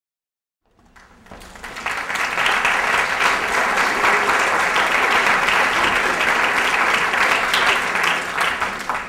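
Audience applauding. The clapping starts about a second in, builds quickly to a full, steady level, and begins dying away at the very end.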